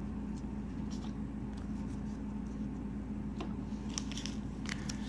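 Faint scattered rustles and light taps of trading cards and a sealed card-pack wrapper being handled on a wooden table, a little busier near the end, over a steady low hum.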